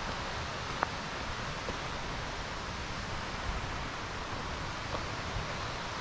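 Steady rush of water through a mountain forest, with a faint click or two from footsteps on the trail, the clearest about a second in.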